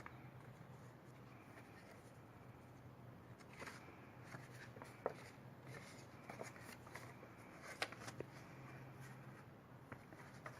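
Faint handling noises: light rustling with a few scattered small clicks over a steady low hum.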